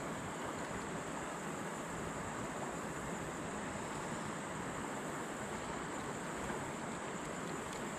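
Shallow creek water running steadily over riffles, an even rushing sound.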